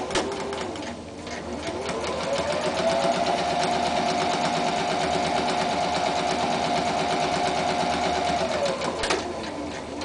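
Electric domestic sewing machine stitching a straight seam. It starts at a slower speed, then the motor speeds up to a steady high whir with rapid needle ticks for about six seconds, and slows to a stop near the end. There are sharp clicks at the start and about a second before the end.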